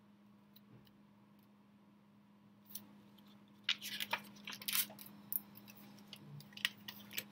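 Pages of a spiral-bound sketchbook being turned and handled, paper rustling and crinkling in short bursts about three to five seconds in and again near the end, over a steady low hum.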